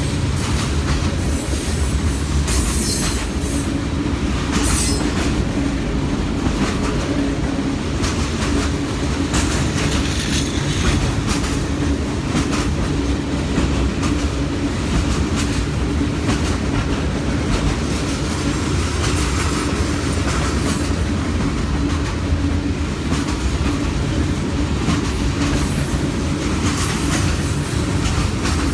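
Freight cars of a CPKC manifest train rolling past, with steel wheels clicking over rail joints and a faint flange squeal near the end.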